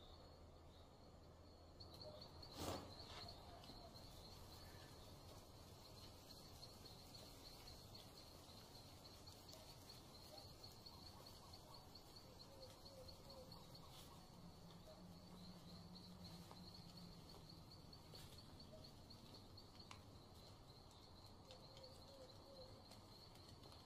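Faint night-time forest ambience: insects trilling in a steady, high, pulsing chorus over a low hum, with one sharp knock about three seconds in.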